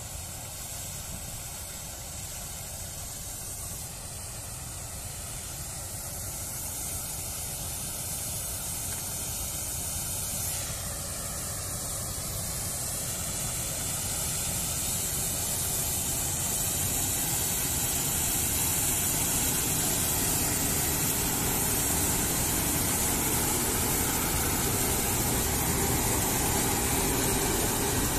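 Claas Lexion 770 combine harvester's engine and threshing machinery running under load while harvesting rapeseed, a steady rushing mechanical noise that grows steadily louder as the machine draws near.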